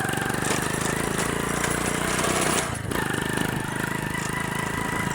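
Motorcycle engine running steadily under way, with a rapid even firing beat, heard from the rider's seat. It dips for a moment just before three seconds in.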